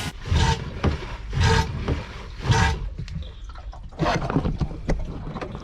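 Water gushing and gurgling from a hand-worked manual bilge pump, a surge with each stroke, about one a second, four strokes in all, drawing rainwater out of the flooded cavity under the boat's floor.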